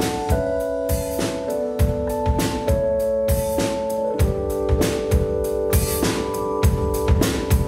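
Live jazz band playing an instrumental passage: a drum kit keeps a steady beat under held keyboard notes and chords, with double bass below.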